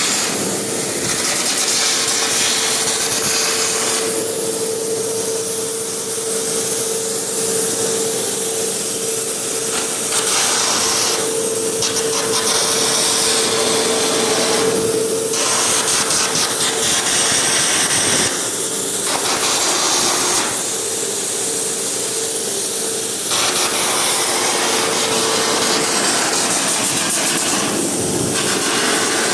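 Welding arc crackling and hissing steadily, with a faint steady hum underneath.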